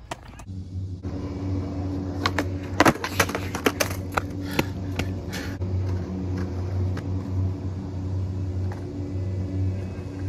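A steady low engine-like hum starts about half a second in and runs on unchanged. Between about two and five and a half seconds in comes a run of sharp clacks, a skateboard knocking on concrete.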